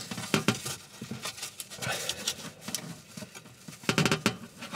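Gloved hands handling wires and pushing spade connectors onto an oven heating element's terminals: irregular small clicks and scuffs, with a quick cluster of clicks about four seconds in.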